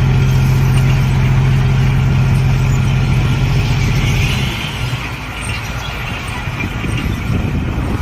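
Heavy diesel engine of a dump truck or excavator running hard with a steady drone, easing off about four and a half seconds in to a lower, rougher rumble.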